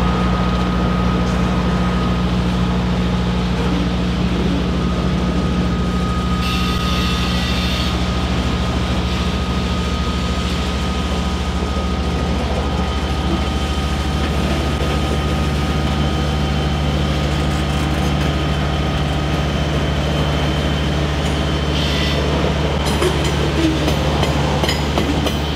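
Freight train's boxcars rolling slowly past at close range on rough track, their wheels rumbling steadily over the rails with a low diesel engine drone underneath. A brief high hiss or squeal comes about seven seconds in, and a few sharp clanks near the end.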